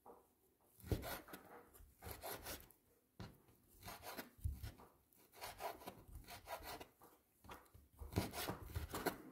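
Large kitchen knife chopping raw beef into small pieces on a wooden cutting board. The blade taps the board in quick runs of strokes, in bursts with short pauses between, the first starting about a second in.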